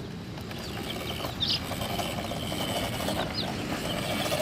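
Young chicks peeping, with a few short high chirps over a steady low noise. From about halfway a steady buzzing hum comes in and keeps going.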